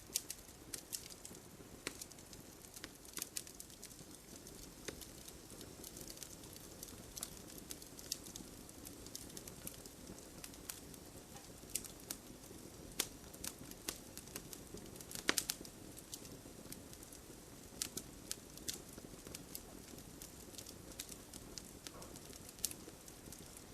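Campfire crackling: scattered sharp pops and snaps of burning wood over a low, steady hiss, with one louder pop about fifteen seconds in.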